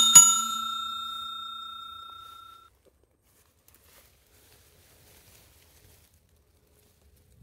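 A bell struck once, its metallic ring fading away over about two and a half seconds.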